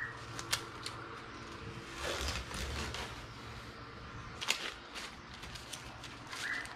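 Masking tape being peeled off the edge of a painted wooden table top: a soft rasp about two seconds in and a few light clicks and taps.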